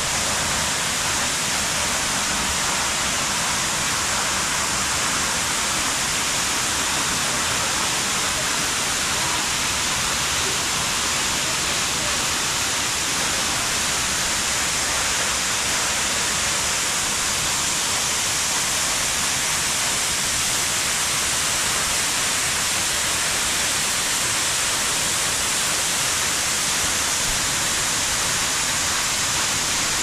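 Steinsdalsfossen, a 50-metre waterfall, heard close by as a steady, even rush of falling water.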